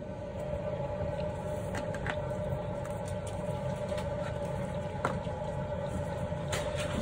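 Steady room hum with a faint held tone, and a few light clicks, about five seconds in and again a little later, as a phlebotomist handles blood-draw supplies beside an arm with a tourniquet on.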